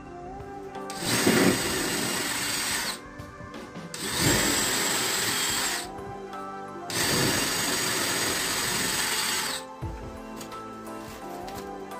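DeWalt 20V cordless drill boring three holes into drywall, in three bursts of about two seconds each. Background music plays underneath.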